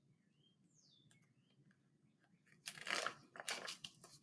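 Near silence, then about two and a half seconds in, the papery rustle of a picture book's page being turned, lasting about a second and a half.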